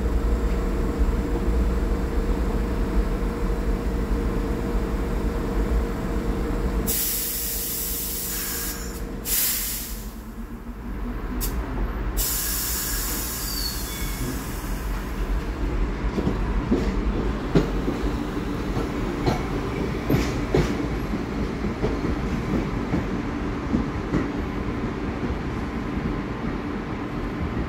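R62A subway train at a station: a steady hum with a held tone at first, then loud bursts of air hissing about a quarter of the way in, as the brakes release. The train then pulls out, rumbling and clicking over the rail joints as it moves off.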